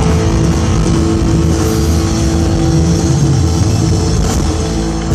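Live band with drum kit and electric guitars playing loudly, heard through a theatre's sound system from the audience seats.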